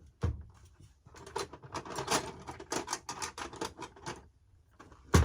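A flurry of small irregular clicks and rustles from hands handling the foam RC airplane and its parts on a towel-covered workbench, with one sharp knock near the end.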